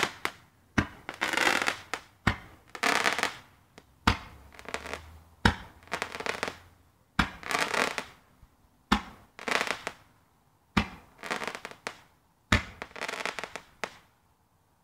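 Fireworks firing one shot after another: about eight sharp bangs, one every second and a half to two seconds. Each bang is followed by about a second of crackling hiss, and the string stops shortly before the end.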